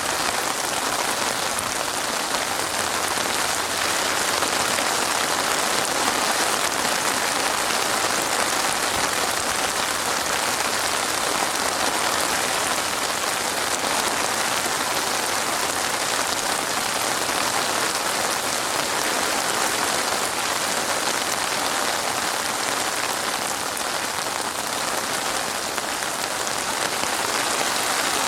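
Steady, even rain falling on a surface.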